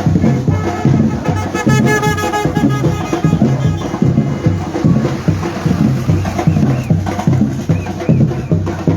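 Batucada drum ensemble playing a steady, driving rhythm of bass drums and hand percussion.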